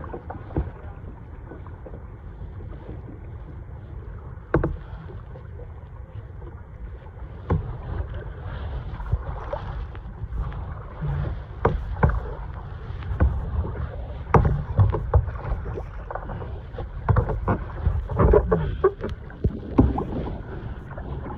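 Kayak being paddled on the ocean: irregular splashes and knocks from the paddle and water against the hull, more frequent in the second half, over a steady low wind rumble on the microphone.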